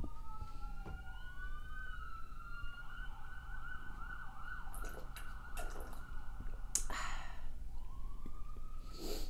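Emergency vehicle sirens going by: two overlapping wails glide up and down, switch to a fast yelp for a few seconds in the middle, then a rising wail returns near the end.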